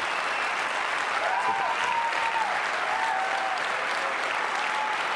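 A large auditorium audience applauding steadily, with a few cheers rising over the clapping.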